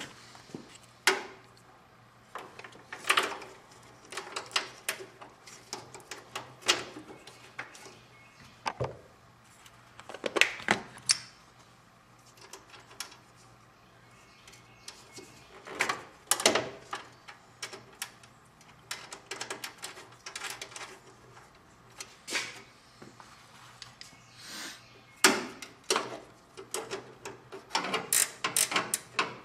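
Hand tools and parts being handled during wiring work: scattered, irregular clicks, clunks and rattles, with a quick run of clicks near the end.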